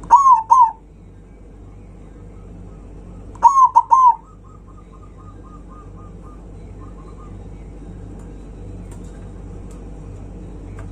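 Zebra dove (perkutut) cooing: two loud short phrases of a few quick notes each, about three seconds apart. After the second phrase comes a faint run of rapid staccato notes, over a steady low hum.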